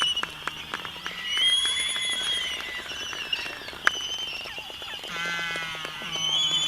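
Albatross calls: high whistled calls that rise and fall, over a run of short dry clicks. There is one sharper click about four seconds in, and a lower, buzzier call about five seconds in.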